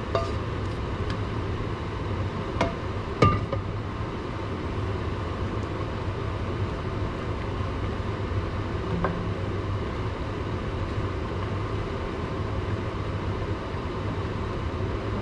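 A few sharp clinks of a utensil against cookware in the first few seconds, each ringing briefly, and one faint clink near the middle, over a steady low hum.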